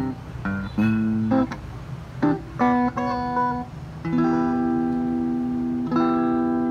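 Maison electric guitar played through a Fernandes FA15 practice amp on its clean tone. A few short picked notes and chords are followed by two long ringing chords, from about four seconds in.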